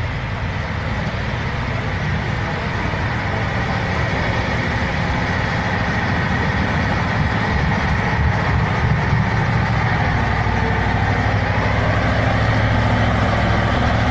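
Heavy truck engine running steadily under a dense rushing noise, both growing gradually louder.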